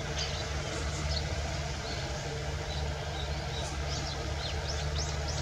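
Compact farm tractor pulling a seed drill across a field, its engine running steadily at low revs. Small birds chirp over it in short downward notes, coming more often near the end.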